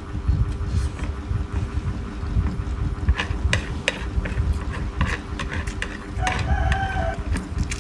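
Close-miked eating: wet chewing and mouth sounds throughout, with a few sharp clicks between about three and five seconds in and a brief pitched sound near the end.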